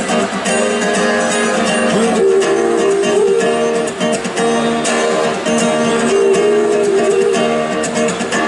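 Live band playing an instrumental passage of an acoustic arrangement, with guitar to the fore and held notes that bend in pitch.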